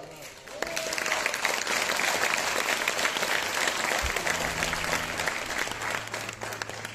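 Audience applauding at the end of a live song; the clapping swells about half a second in and then holds steady.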